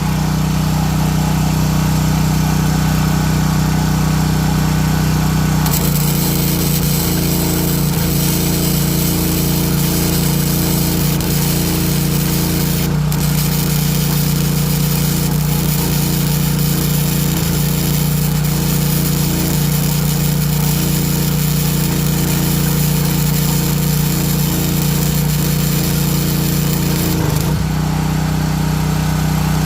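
Portable propane-fuelled generator running steadily under load. From about six seconds in until near the end, a stick-welding arc adds a continuous high hiss over it.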